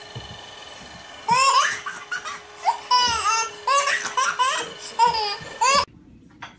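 A baby laughing hard in a run of high, squealing bursts that starts about a second in and is cut off suddenly near the end, with a faint steady hum underneath.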